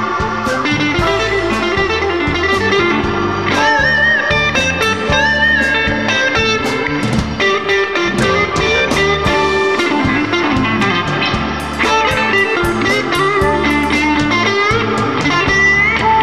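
Electric Chicago blues band playing an instrumental break: a lead electric guitar with bent notes over bass and drums.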